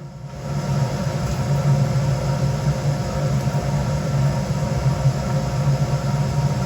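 DeWalt table saw running steadily, its motor coming up to speed in the first second.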